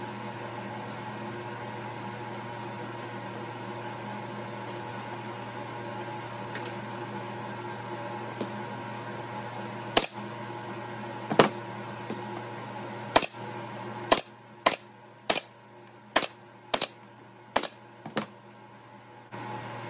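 Pneumatic Bostitch nailer firing about ten sharp shots into plywood, starting about halfway in and coming quicker near the end, roughly one every half second. A steady hum runs underneath.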